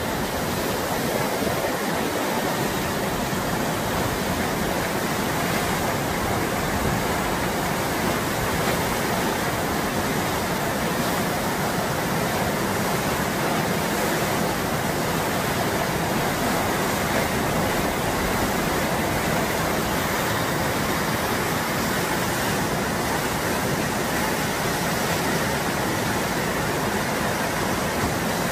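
White water of the Eisbach's standing river wave rushing steadily, a constant, even water noise that does not change.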